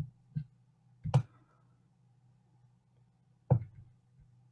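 Three short, sharp computer mouse clicks, spaced irregularly, over a faint steady low hum.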